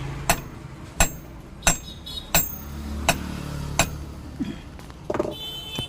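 Six light hammer taps, evenly spaced about two-thirds of a second apart, on a mixer grinder motor's bush that is jammed tight on the armature shaft, knocking it to loosen it.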